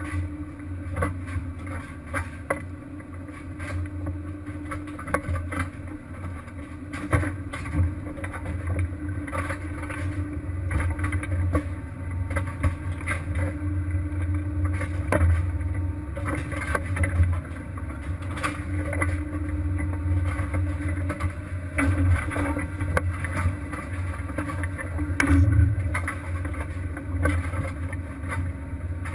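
Fishing boat's engine running, a steady low drone with a held hum above it, and scattered knocks and clanks throughout.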